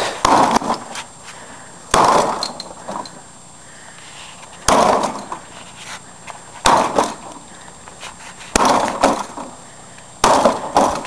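Six sharp metal blows, about two seconds apart, each ringing briefly, struck on a blown Briggs & Stratton lawnmower engine to break it open.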